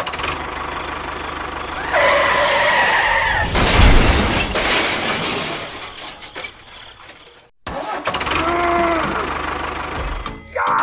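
Engine-like mechanical noise with a dense hiss and a short stacked tone twice. A loud burst comes about four seconds in. The noise cuts off suddenly about seven and a half seconds in and starts again almost at once.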